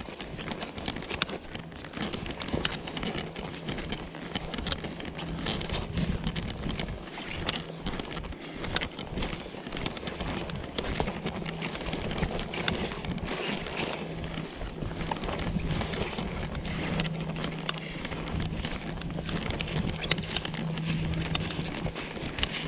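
Brisk walking through tall dry grass and goldenrod: dry stalks crackling and swishing against the legs, with footsteps and wind on the microphone. A low steady hum comes and goes.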